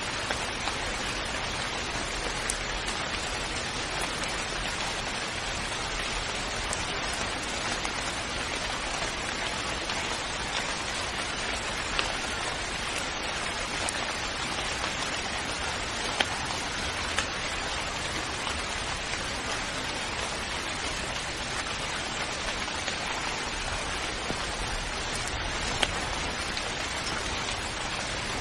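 Steady rain falling, an even hiss with a few louder single drops hitting close by now and then.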